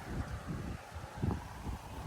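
Wind on the microphone with a few soft low thumps, typical of footsteps or handling while walking.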